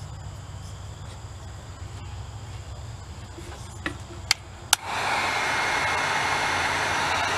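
Over a low steady hum, two sharp clicks, then a heat gun switches on about five seconds in and blows with a steady rushing sound and a thin high whine, shrinking heat-shrink tubing over soldered wire splices.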